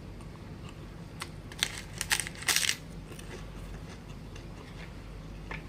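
Light clicks and taps from handling tableware and food packaging. A few sharp clicks come a little over a second in, then a short dense clatter at about two and a half seconds, over a steady low hum.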